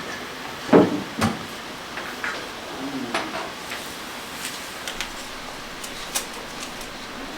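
Scattered clicks and knocks of small hard objects being handled, with two louder knocks close together about a second in.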